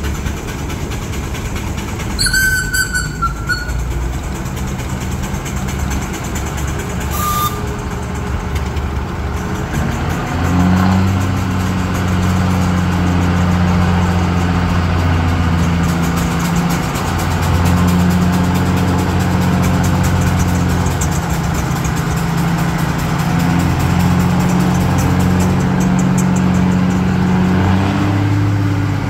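Vintage vehicle engines running steadily, getting louder and fuller about ten seconds in. A brief high-pitched sound comes a couple of seconds in.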